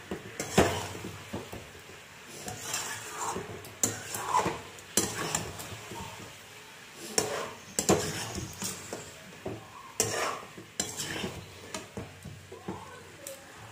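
A spatula scraping and knocking against an aluminium pot as chunks of chicken and potato are stirred and fried in the spice paste. Under it is a soft sizzle of the masala frying in oil that has separated. The scrapes and knocks are irregular, and the sharpest knock comes about half a second in.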